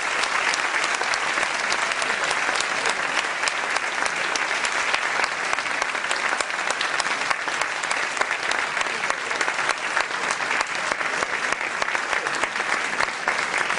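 Audience applauding, a dense, steady clapping that holds an even level throughout.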